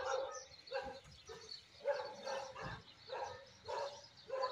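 Dogs barking over and over in short, evenly spaced barks, about two a second.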